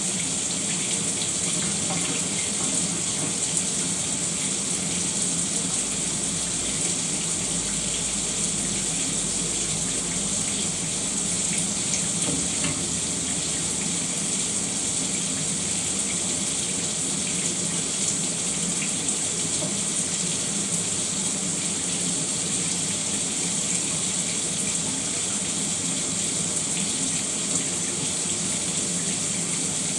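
Shower running steadily: a constant hiss of water spray falling.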